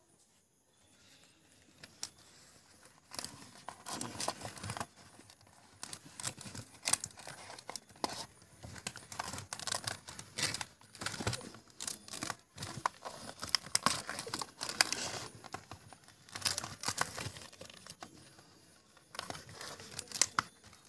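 Fresh banana leaves crinkling and rustling as hands press and fold them over the mouth of a clay pot, in irregular bursts that build up from about three seconds in.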